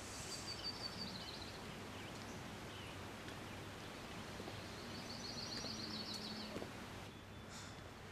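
A small songbird singing a quick high trill twice, once near the start and again about five seconds in, over faint steady background noise.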